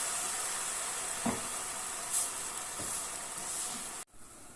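Red wine sizzling in a hot pan of browned beef and garlic as its alcohol cooks off: a steady hiss with a couple of faint taps, which cuts off abruptly near the end.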